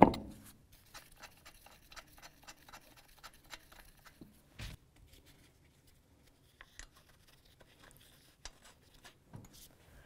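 Lug nuts being threaded by hand onto a car's wheel studs: a sharp metal knock at the start, then a run of faint, rapid metallic ticks and scrapes that thins out into scattered clicks.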